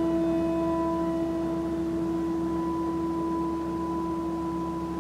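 A bell's ring dying away after a single stroke: one steady low tone with a couple of higher overtones, slowly fading. It is a memorial toll for a name just read out.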